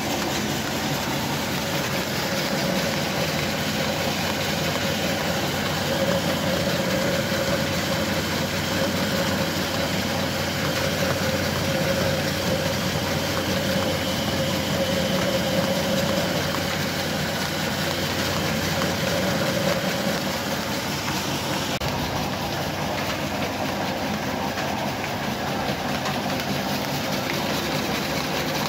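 Belt-driven commercial flour mills (atta chakki grinders) running steadily while grinding grain fed from the hoppers. It is a continuous mechanical drone with a humming tone that fades about three-quarters of the way through.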